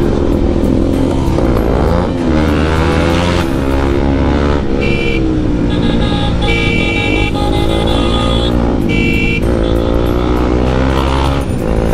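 Bajaj Pulsar NS200 motorcycle with a loud exhaust, ridden hard, its engine revving up and falling back again and again.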